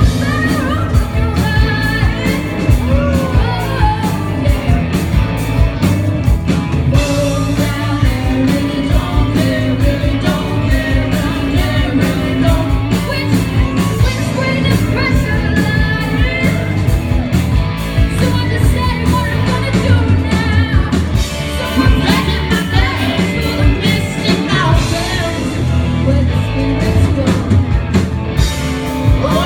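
Live rock band: female voices singing over electric guitars and drums.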